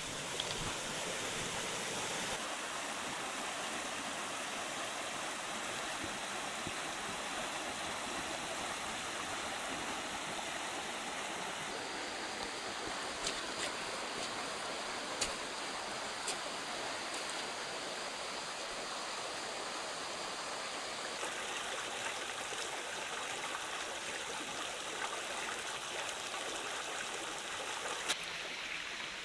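Shallow rocky jungle stream running over stones, a steady rush of water, with a few brief sharp clicks partway through and near the end.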